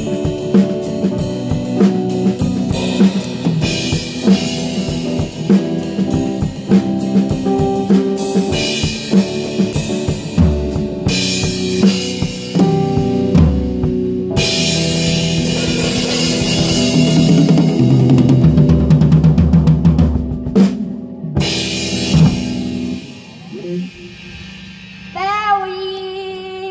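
Live band of drum kit, electric guitar and keyboard playing out the end of a pop song. A driving drum beat gives way to a build of washing cymbals over held low notes; the band cuts off about twenty seconds in, a final hit rings out, and a few sliding high notes sound near the end.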